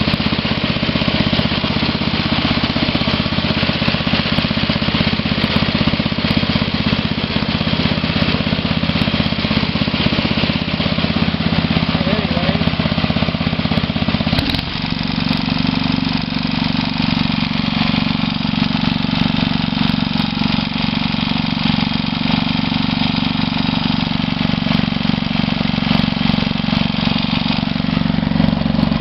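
Sears garden tractor's Tecumseh OH160 single-cylinder engine running steadily on a rebuilt Walbro WHG carburetor; its note changes abruptly about halfway through.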